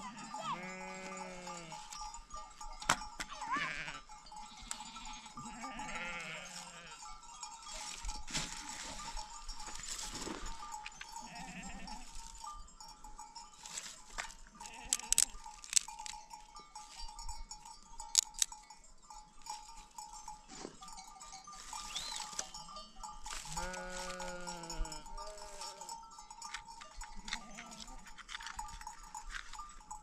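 Sheep bleating: two loud bleats, one just after the start and another about two-thirds of the way through, with softer calls between and the clink of flock bells.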